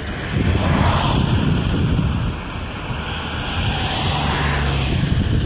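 Wind buffeting the microphone, a heavy rumbling noise that swells twice, about a second in and again around four seconds.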